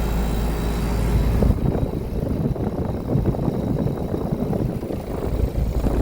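Outdoor air-conditioner condensing units running: a steady hum of compressor and condenser fan. From about a second and a half in, a gusty rumble of air or handling noise on the microphone covers it.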